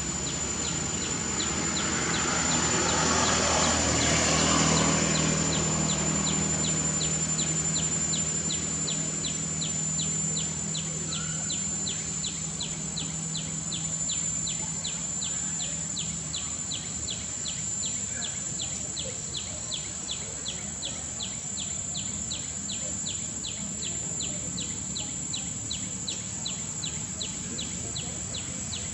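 Outdoor ambience: a steady high-pitched insect drone with a regular ticking call about three times a second. A low hum and a rushing swell rise in the first few seconds and fade out by about halfway.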